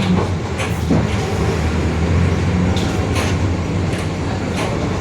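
Mercedes-Benz OF-1721 city bus on the move, its rear differential droning very loudly in a steady low hum, with a few short knocks and rattles over it.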